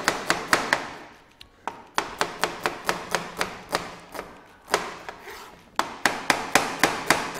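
Chef's knife slicing a red onion on a plastic cutting board: quick runs of knife strokes knocking on the board, about four to five a second, broken by short pauses.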